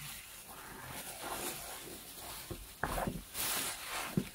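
Plastic bubble wrap being pulled off a cardboard box and crumpled by hand: uneven rustling and crinkling, with a few short, louder crackles near the end.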